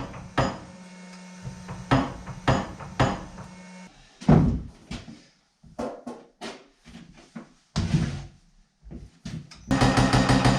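Irregular knocks and clatter of metal and tools being handled, with a low hum that stops about four seconds in. Near the end a reciprocating metal-shaping machine starts up, pounding with rapid, even strokes.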